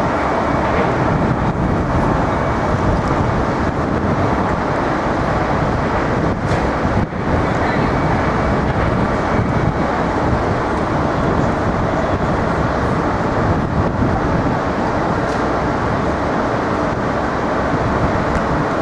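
Steady city street noise: road traffic running continuously, with no single event standing out.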